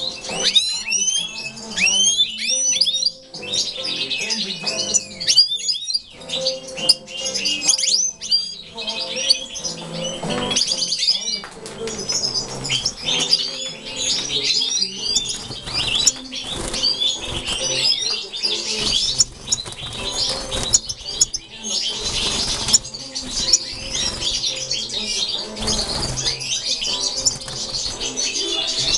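Many European goldfinches chirping and twittering in quick, overlapping calls, with now and then a burst of wing flapping.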